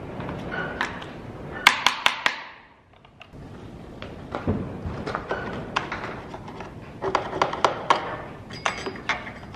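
Clinks, taps and knocks of metal parts and tools being handled while a small chainsaw is taken apart for cleaning, with a quick run of sharp clinks about two seconds in and another run later on.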